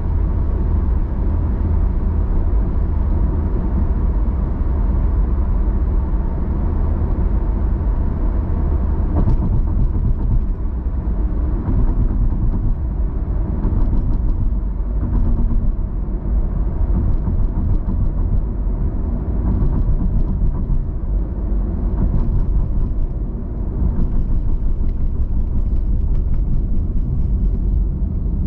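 Steady low rumble of a car driving at road speed, heard from inside the cabin: tyre, road and engine noise.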